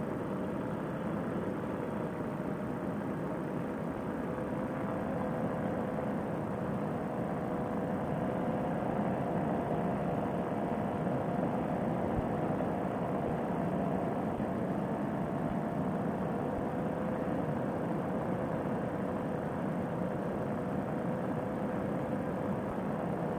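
Fresh Breeze Monster paramotor engine, a single-cylinder two-stroke, running steadily with its propeller at cruise power in flight, a constant drone that swells slightly partway through.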